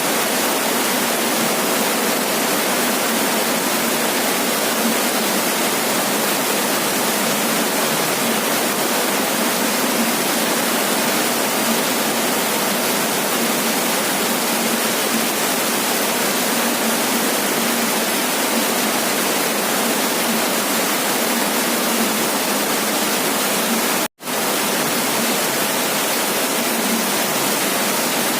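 Heavy rain falling on a roof, a steady dense hiss. It cuts out for a split second about four seconds before the end.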